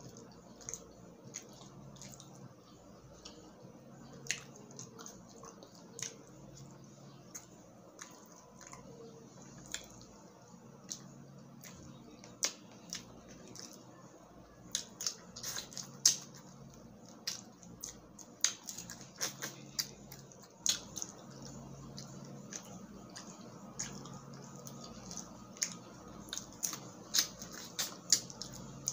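Cooked shrimp shells being cracked and peeled apart by hand, a run of sharp, irregular crackles and clicks that comes faster in the second half, mixed with wet chewing.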